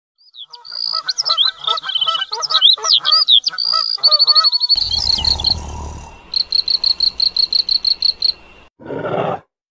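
Morning birdsong sound effect: many birds chirping and twittering in quick rising and falling whistles, then a rapid run of evenly spaced chirps, about six a second. Near the end a short rasping snore.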